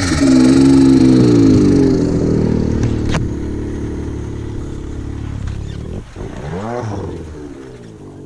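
Snowmobile engine revving hard on a steep climb, then fading as the sled tumbles away down the slope. There is one sharp knock about three seconds in and a short rise and fall of the revs near the end.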